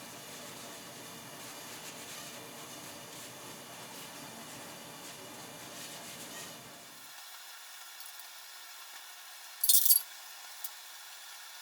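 Faint steady background noise that thins out about seven seconds in, then one brief, sharp metallic clink near the end.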